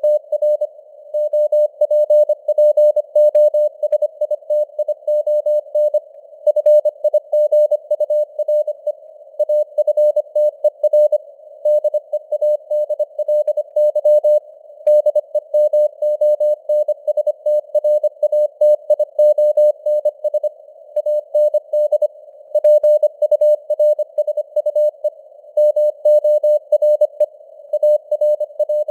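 Morse code (CW) sent at 25 words per minute: one beep tone keyed on and off in rapid dots and dashes. It sits in a narrow band of simulated radio hiss, and the signal strength rises and falls (QSB).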